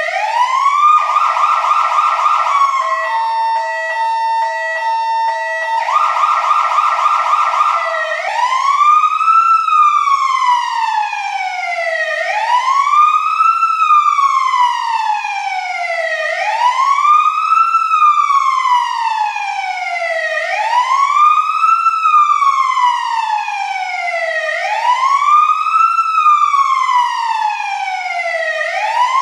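Fire truck siren cycling through its tones: a falling wail, then a fast yelp, a few seconds of steady tone, more yelp, and from about eight seconds a slow wail that rises quickly and falls away, about once every four seconds.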